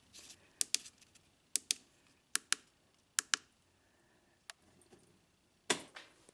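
Switches on an Auxbeam 8-gang switch panel being clicked: short sharp clicks in quick pairs, about one pair a second, then a few fainter clicks and one more pair near the end.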